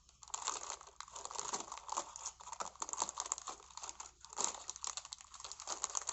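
Thin plastic bag of Lego bricks crinkling as it is cut open with scissors, with many quick irregular crackles and clicks throughout.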